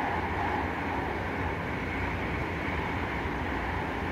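Steady running noise of a BART rapid-transit train in motion, heard from inside the passenger car.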